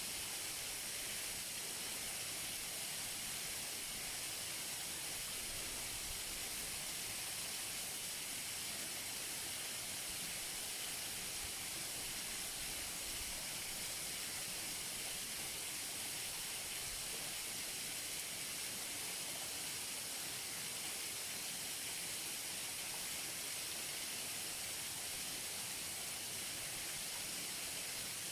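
Waterfall recorded close up: a steady, hissing rush of falling water that stays the same throughout.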